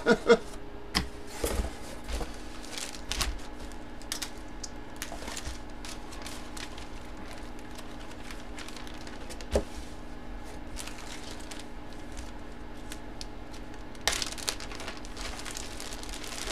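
A cardboard box and the packed items inside it being handled: scattered taps, clicks and rustles, with a short spell of rustling near the end.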